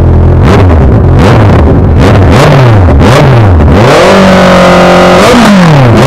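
Motorcycle with an aftermarket titanium exhaust being revved for a sound test. About half a second in, the engine goes from idle into a run of quick throttle blips, the revs rising and falling several times. Near four seconds in they are held up for about a second, then drop and blip again. Very loud.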